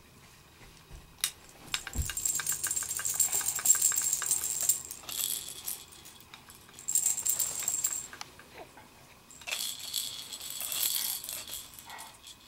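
Jingling baby toy rattle being shaken in three bursts, with short quiet gaps between them.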